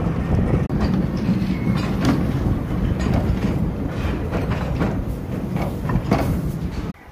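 Miniature steam railway train running along its track, heard from an open passenger carriage: a steady rumble of wheels on rail with irregular clicks as the wheels pass over rail joints. The sound cuts off abruptly shortly before the end.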